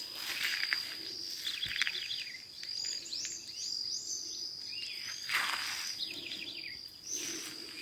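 Birds chirping in short repeated notes and chattering trills over a steady high-pitched insect drone. A brief noisy swish comes about five seconds in.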